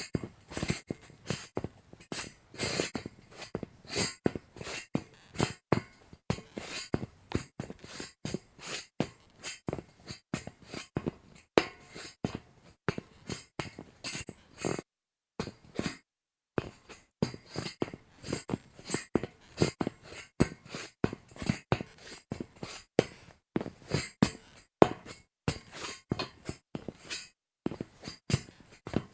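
Footsteps of sneakers walking on a metal grate: a steady run of sharp, clanking steps, about two to three a second, with a pause of about a second midway.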